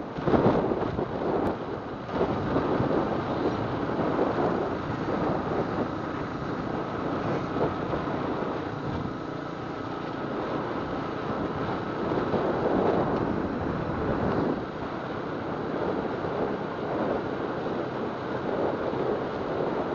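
Wind buffeting the microphone of a helmet camera on a moving motorcycle: a steady rushing noise that surges and eases, with the ride's vehicle noise underneath.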